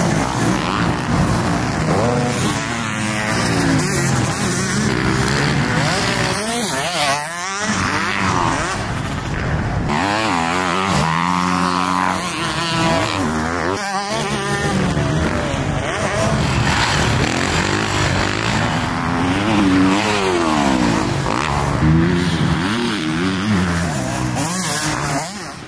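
Motocross dirt bike engines revving hard on the track, pitch climbing and falling repeatedly as the bikes accelerate and shift, with engine notes overlapping at times. The engine sound drops away just before the end.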